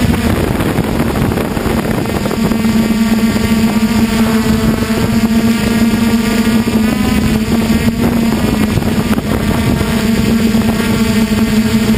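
DJI Flame Wheel F450 quadcopter's motors and propellers buzzing in flight, a loud steady hum that wavers slightly in pitch as the throttle shifts.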